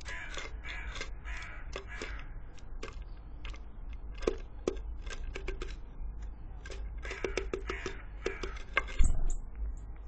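A nuthatch pecking at sunflower seeds on a wooden feeder tray: irregular sharp clicks and taps, with a louder thump about nine seconds in as the bird leaves. Short raspy bursts come in two groups, near the start and again about seven seconds in.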